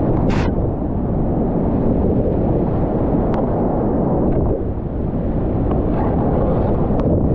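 Whitewater rapids rushing loudly and steadily around a kayak running them, heard dull and muffled, with a brief hissing splash just after the start and a few sharp ticks later on.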